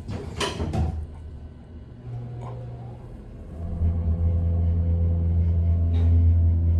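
Elevator doors sliding shut with a clunk, then, about three and a half seconds in, the Northern hydraulic elevator's machinery starts a loud, steady low hum as the cab moves off.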